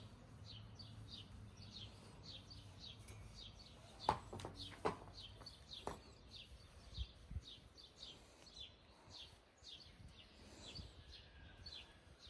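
Faint bird calls: short falling chirps repeated about three times a second. A few sharp clicks stand out about four to six seconds in.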